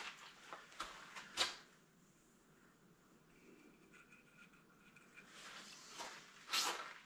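Faint handling noise from a small plastic CA glue bottle being squeezed and moved around the bowl blank: a few light clicks and taps, the sharpest about a second and a half in and again near the end.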